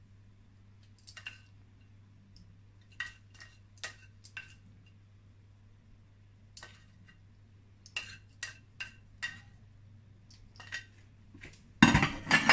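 A serving utensil clinks now and then against a ceramic dish and plate as food is scooped and spooned out. Near the end comes a louder cluster of crockery and utensil clatter.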